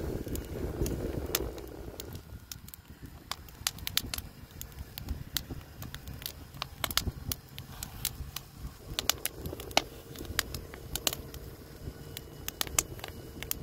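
Wood fire crackling, with irregular sharp pops from the burning logs.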